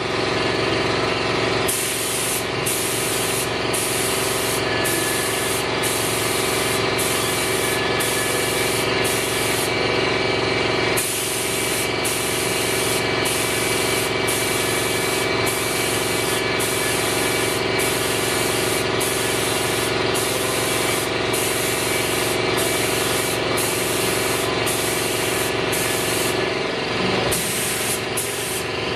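Air-driven gravity-feed paint spray gun hissing as it sprays metallic green automotive paint onto steel fireplace pipes, with a steady machine hum beneath. The hiss swells and drops about every half second from about two seconds in.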